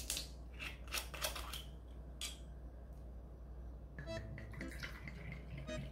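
Kitchen scissors snipping a few times, sharp short clicks. Light background music begins about four seconds in.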